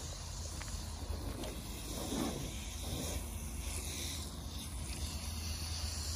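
Garden hose spraying water onto a car's bodywork, a steady hiss.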